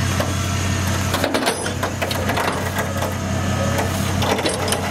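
Flatbed tow truck winching a car up its ramp: a steady low drone from the truck's winch drive, with many irregular cracks and snaps as the car moves.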